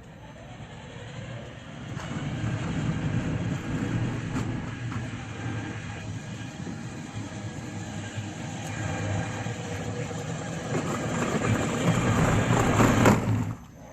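Motorized remote-control cooler driving at medium speed on its electric drive with a full load of soda and ice, its wheels rumbling over the ground. It grows louder as it approaches and cuts off suddenly near the end when it stops.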